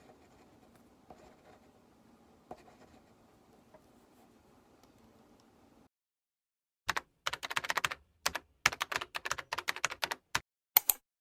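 Typing on a computer keyboard: a quick, uneven run of key clicks through the second half, after faint room tone with a few soft taps.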